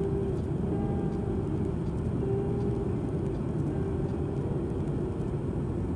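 Steady cabin noise inside a Boeing 737-800 in flight: a low, even rush of airflow and its two CFM56-7B engines, with a faint hum that comes and goes.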